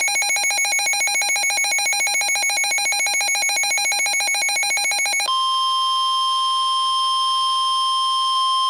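Weather alert radio's electronic alarm beeping rapidly. About five seconds in it switches abruptly to the steady, single-pitched NOAA Weather Radio 1050 Hz warning alarm tone, the signal that a warning broadcast is about to follow.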